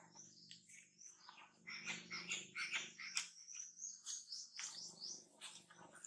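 Newborn monkey squeaking: a rapid string of short, high-pitched chirps and cries, some sliding downward.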